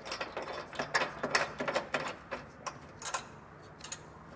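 Light metallic clicks and clinks of a subframe bolt being threaded back in by hand, coming close together for about three seconds and then thinning out.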